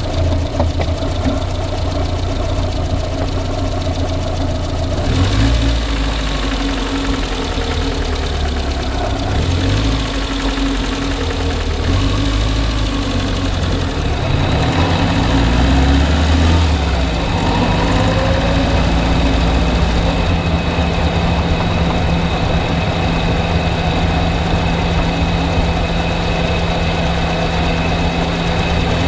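Car engine running at idle with a knocking sound in the engine. Its note shifts about halfway through, then holds steady.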